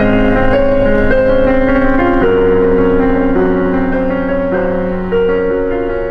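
Music led by a keyboard playing held chords that change about once a second over a steady low bass note.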